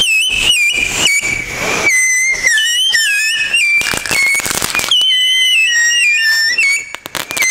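Whistling fireworks screeching one after another, each whistle setting in high and wavering down in steps, with sharp crackling pops throughout that come thicker near the end.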